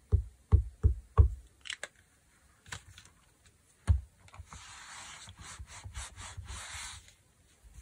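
A stamp being dabbed on an ink pad in a quick series of soft thumps, then set down with a thump and rubbed back and forth over the fabric for a couple of seconds to press the print in.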